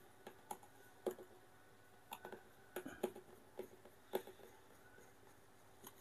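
A dozen or so faint, irregular plastic clicks from a Toshiba washing machine's drain motor (drain actuator) as its blue output cam is turned by hand with a screwdriver, the reassembled gears ticking over. The gear train is now holding firm instead of slipping.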